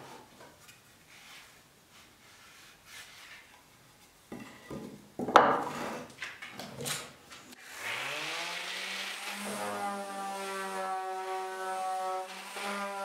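Wooden pieces knocking and scraping, with one sharp knock about five seconds in. About eight seconds in, an electric power tool's motor spins up in a rising hum and then runs steadily.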